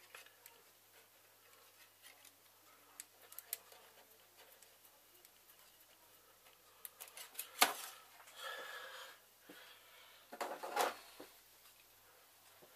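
Scattered light clicks and knocks of small hard objects being handled, with one sharper click about seven and a half seconds in and short bursts of rustling or scraping after it.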